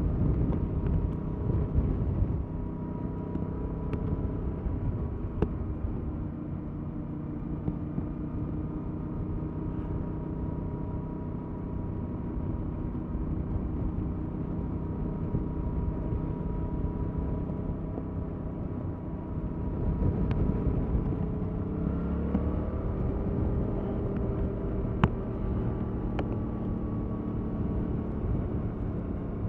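2021 Yamaha MT-07's 689 cc parallel-twin engine running through its stock exhaust at steady riding revs, with wind rumble on the microphone. About 22 seconds in, the engine note rises as the bike accelerates.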